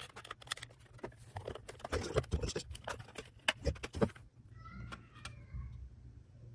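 Plastic snap-fit clips of a Xiaomi Mi Box TV box case clicking and cracking as the lid is pried open with a thin pry tool: a rapid, irregular run of sharp clicks for about four seconds, then it goes quiet.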